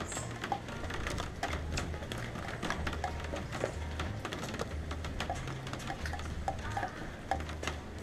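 Rain dripping and pattering onto a hard surface right by the microphone: an irregular stream of sharp ticks over a steady hiss of rainfall.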